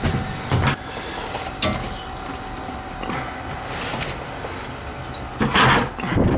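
Footsteps down wooden cellar stairs, with scattered knocks and clatters of a plastic bucket being carried and handled. The loudest clatter comes near the end as the bucket is set down by the shutoff valves.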